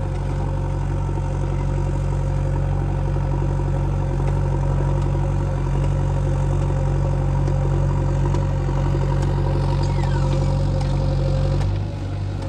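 JCB 3DX backhoe loader's diesel engine running steadily, a low engine hum with a steady whine above it; the level dips briefly near the end.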